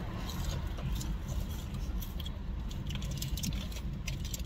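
Scattered small clicks and rustles of eating and handling takeout food and its wrappers, over a steady low in-car hum.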